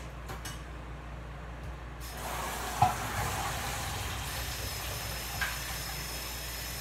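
Kitchen tap turned on about two seconds in, water running steadily into the sink. A sharp clink comes just after and a fainter one near the end.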